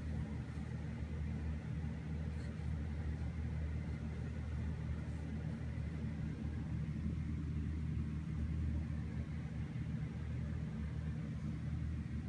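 A steady low rumble, even in level throughout, with no distinct knocks or changes.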